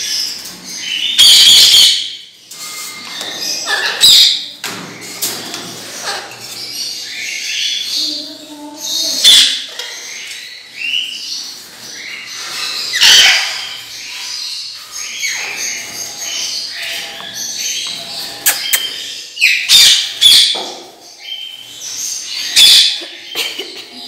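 Caged parrots and parakeets in an aviary chirping and screeching, with loud squawks every few seconds over a continuous chatter of calls.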